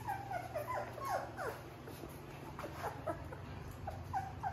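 Three-week-old Labrador retriever puppies whimpering: a string of short, high squeaks that fall in pitch, thickest in the first second and a half, then scattered.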